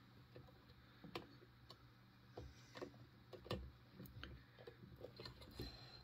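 Faint, irregular clicks and taps as a small brass lever padlock is handled and set in a vise.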